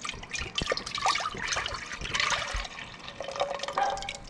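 Orange juice pouring from a carton into a nonstick pot, splashing on the bottom with an uneven, bubbling gurgle.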